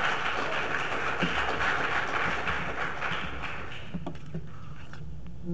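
Audience applauding, dying away about three and a half seconds in.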